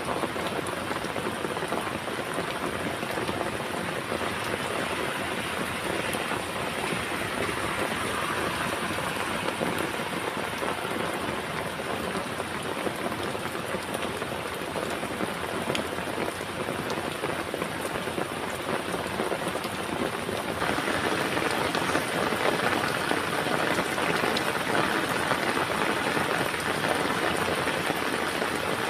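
Heavy rain falling steadily, a dense even hiss with scattered raindrop ticks. About two-thirds of the way through it suddenly gets louder and brighter.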